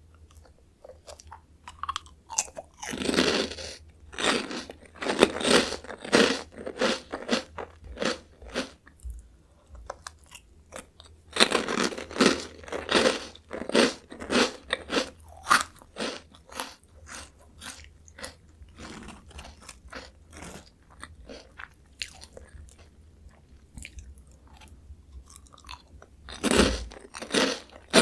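Close-miked biting and chewing of crunchy Jagalchi seafood-flavoured snack crackers: loud bursts of crisp crunching with each bite, easing into quieter chewing between bites, and a fresh loud bite near the end.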